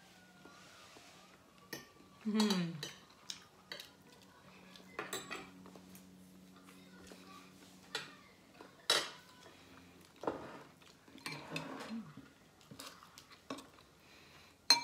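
Metal forks and spoons clinking and scraping against ceramic plates in scattered, irregular strikes, with a sharp clink just before the end. A short hum of a voice comes about two seconds in.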